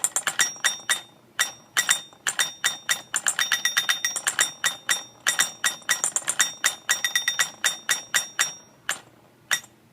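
Novelty caveman alarm clock's mechanical alarm going off: a striker hitting rapidly in uneven runs, each strike with a bright metallic ringing clink. It stops near the end, apart from two last strikes.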